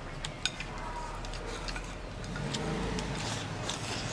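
Chopsticks clicking and scraping against a rice bowl as rice is shoveled into the mouth, with a few sharp clicks in the first second or two.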